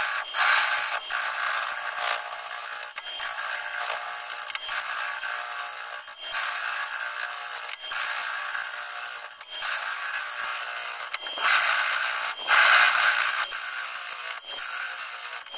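A 5/8-inch bowl gouge cutting very hard cherry plum wood on a lathe turning at about 450 RPM: a rough, continuous scraping that swells and drops as the tool rides over the uneven blank. It has brief breaks where the cut lifts and louder stretches about three-quarters of the way through.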